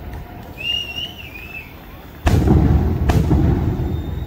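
Fireworks: a sudden loud bang about two seconds in, followed by a low rolling rumble, with a second sharp crack about a second later. Before the bang there is a short high warbling whistle.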